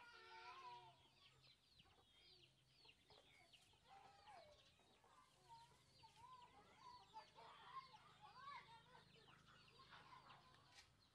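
Faint chickens clucking and small birds chirping, many short calls.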